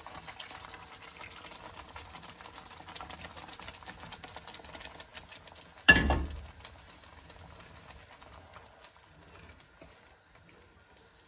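Hot milk sizzling and bubbling as it hits a pan of butter-fried lentil paste and is stirred in with a spatula, a dense crackle that thins out and grows fainter over the second half. A single loud knock about six seconds in.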